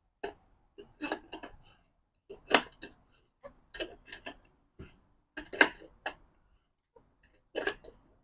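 Irregular sharp metallic clicks and clinks, about fifteen of them, as a C-clamp is worked against the wheel rim to break the bead of a motorcycle tire.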